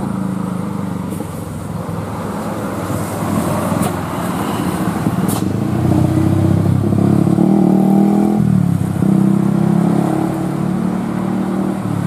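Road traffic on a hill road: a tour coach's engine pulling past, then a car and a motor scooter passing close. Their engines are loudest from about six to ten seconds in, with a few shifts in pitch.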